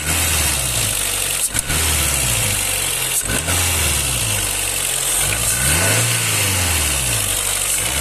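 2002 Renault Clio 2 petrol engine running stationary and revved up and down several times, which the owner says sounds the same hot or cold and feels choked; the mechanic puts the sound down to poor-quality petrol.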